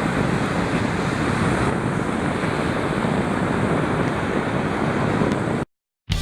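Ocean surf washing on a beach with wind rumbling on the microphone, a steady noise that cuts off suddenly near the end. Music starts right at the end.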